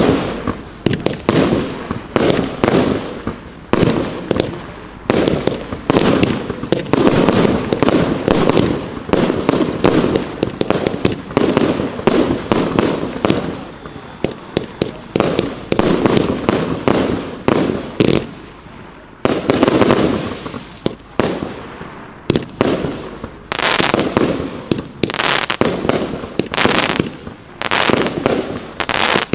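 Evolution Fireworks 'Heaven' firework batteries, three fired together, shooting in a rapid, continuous string of launch thumps and aerial bursts, several a second, with brief lulls about halfway and two-thirds of the way through.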